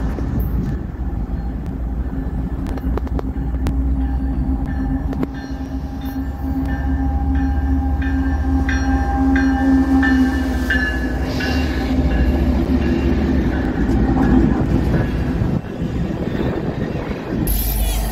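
Canadian Pacific freight train led by diesel locomotives passing close by: a heavy, steady engine and wheel rumble, with a run of regular wheel clicks over the rails around the middle as the locomotives go past.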